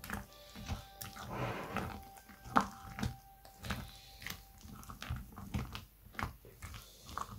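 Spatula folding whipped cream and pineapple chunks in a glass bowl: soft wet squelches with irregular taps and scrapes against the glass, a few of them sharper.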